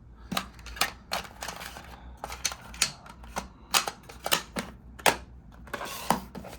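Plastic Video 8 cassette shells being handled: an irregular run of sharp clicks and clacks, about two a second.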